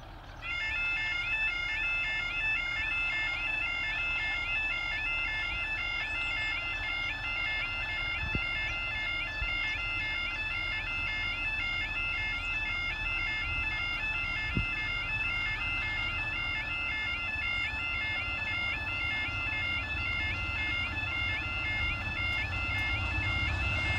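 Railway level crossing warning alarm sounding, a repeated electronic two-tone warble that starts suddenly and carries on steadily. A low rumble builds near the end.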